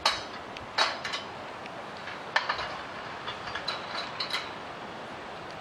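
Irregular sharp metallic clanks and clicks, a few with a short ring, from work on steel scaffolding: a few strong hits in the first half, then a quick run of lighter taps.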